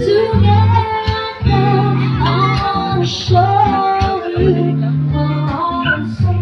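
Live semi-acoustic band music through a PA system: a woman singing a melody over guitar and long held bass notes.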